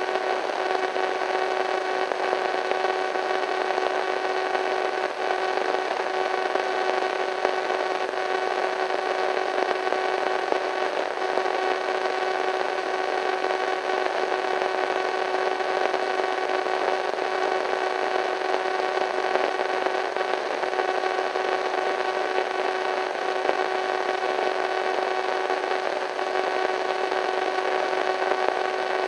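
Radio static: an even hiss with a few steady tones humming through it, holding the same level with no change.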